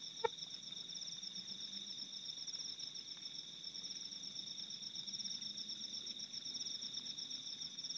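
A night chorus of insects such as crickets: a steady high trill runs together with a higher song that pulses rapidly and evenly. A single short tick comes a moment after the start.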